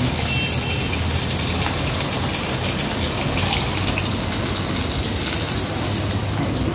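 Mirikali fish pieces, fried crisp, sizzling steadily in hot oil.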